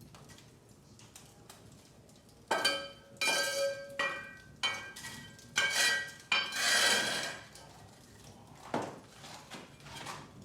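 Cast-iron cookware and metal fireplace tools clanking and scraping on the stone hearth as hot coals are moved onto it and the cast-iron Dutch oven lid is handled. There are several sharp metallic clanks that ring briefly, and one longer scrape past the middle.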